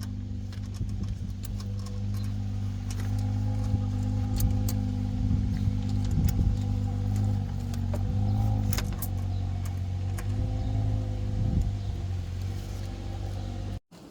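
A steady mechanical hum, like a running engine or motor, with light metallic clicks and jangles over it. It cuts off abruptly near the end.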